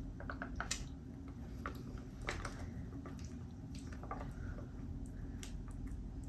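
Foil retort pouch crinkling as it is squeezed, with soft squishing of beef ravioli in sauce sliding out onto a steel tray; scattered crackles over a steady low hum.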